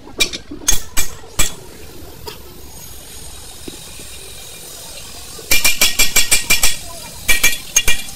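Hammer blows on a steel punch against a steel drum-brake shoe, each strike a sharp, ringing metallic clink. A few single blows come in the first second and a half, then a quick run of about six strikes a second starts about five and a half seconds in.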